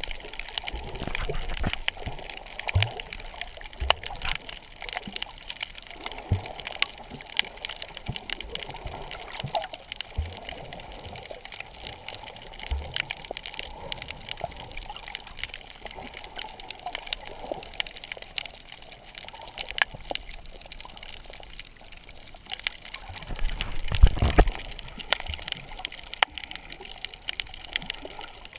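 Underwater sound heard through an action camera's housing while snorkeling: a muffled rush of moving water with many scattered clicks and crackles and a few short low thumps. The water rushes louder for about a second, about 24 seconds in.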